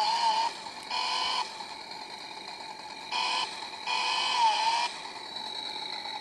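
Toy Stihl chainsaw's battery-powered engine sound, triggered in about four short bursts of a high, whining buzz with a fainter steady hum between.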